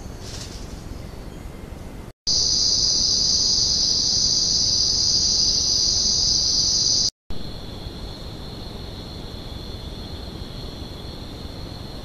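Night insects shrilling steadily: a loud, high, even shrill starts abruptly about two seconds in and cuts off after about five seconds, then after a short break a lower, quieter steady trill goes on. Beneath it all is a steady hiss.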